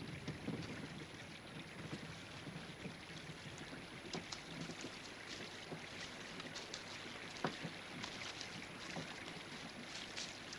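Faint water noise: a steady rush with scattered small ticks and splashes throughout.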